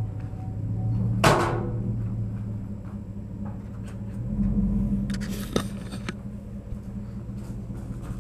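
An engine idles with a steady low hum. About a second in, a single sharp metallic clang rings briefly, and a short bout of clattering follows a few seconds later.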